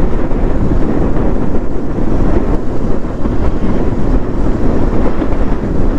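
Loud, steady wind buffeting the microphone of a KTM Duke 390 motorcycle riding at speed, with road and engine noise underneath, mostly low in pitch.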